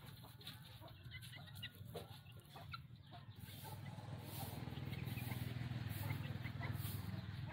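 Chickens clucking in short calls that come every so often, over a steady low hum that grows louder from about four seconds in.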